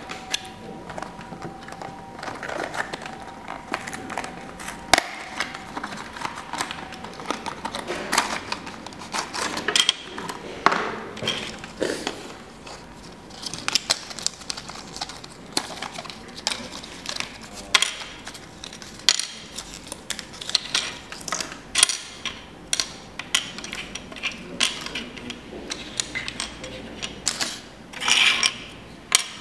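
Small plastic packaging and plastic model freight containers being handled on a wooden tabletop: irregular clicks, taps and light rattles as the trays are pulled apart and the containers are set down.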